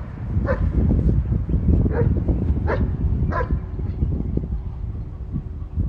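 Dog yipping in short high calls, four of them over the first three and a half seconds, over a steady low rumble.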